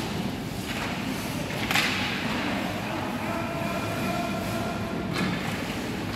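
Youth ice hockey play: skate blades scrape and hiss on the ice in short bursts, the loudest about two seconds in, over a steady background din with faint voices.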